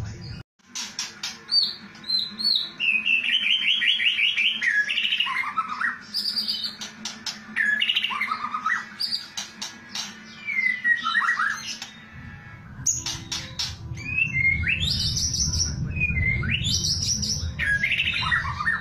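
White-rumped shama (murai batu) singing: varied whistled phrases that glide up and down, a rapid trill, and sharp clicking rattle notes, the 'kretekan' style. A low background rumble joins about two-thirds of the way through.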